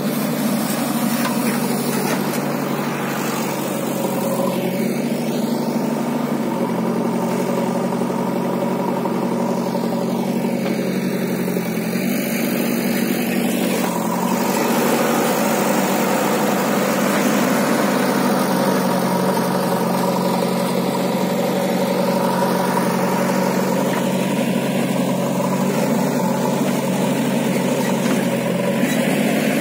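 JCB backhoe loader's diesel engine running steadily while working. Its pitch shifts slightly up and down a few times as the load and throttle change.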